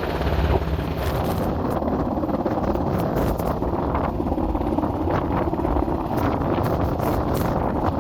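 Coast Guard helicopter hovering overhead, its rotor and engine running steadily, mixed with strong wind buffeting the microphone.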